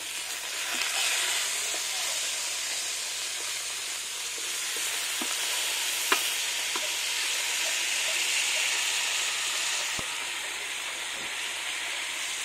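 Whole chickens sizzling as they fry in a large blackened pot, a steady hissing sizzle, with a metal spatula turning them and clinking against the pot a couple of times.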